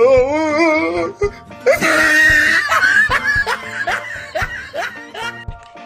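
Background music with a person laughing over it. There is a wavering cry in the first second and a high squeal about two seconds in.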